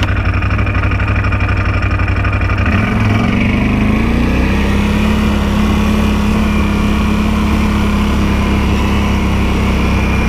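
Off-road vehicle engine running while driving. It revs up about three seconds in, then runs at a steady pitch.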